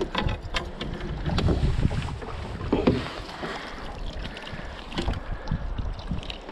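Wind buffeting the microphone, with scattered light knocks and clatters and a couple of louder thuds about one and a half and three seconds in.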